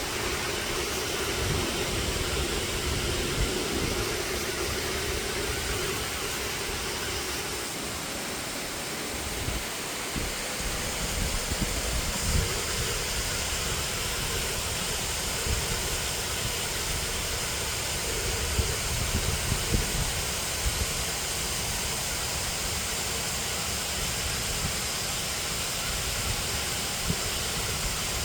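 Waterfall rushing steadily, with uneven low rumbling underneath.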